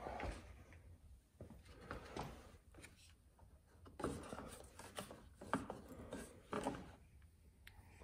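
Faint handling noise as hands work among a motorcycle's dash wiring and panel: irregular rustling of wires with light taps and clicks of plastic and metal, a few slightly louder knocks about four seconds in and again after six seconds.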